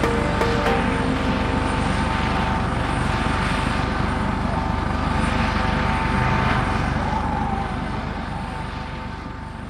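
Helicopter running steadily with a rapid rotor chop and engine rumble, fading away over the last few seconds.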